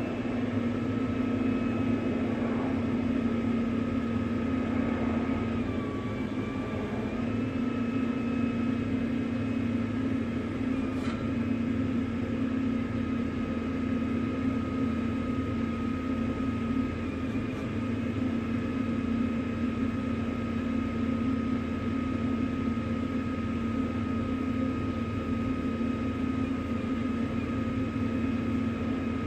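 Tow truck's engine and boom hydraulics running steadily, a low drone under a steady whine, the pitch dipping briefly about six seconds in as the load changes.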